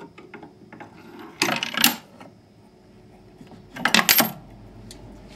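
Coins clinking as a coin drops into the coin bin of a homemade wooden vending machine: two short bursts of rattling metallic clinks, about a second and a half in and again about four seconds in.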